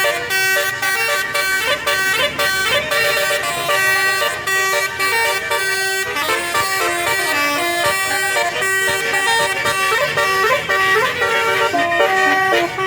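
Tourist bus's basuri telolet musical horn playing a tune: loud horn notes stepping up and down in pitch, with short breaks between phrases.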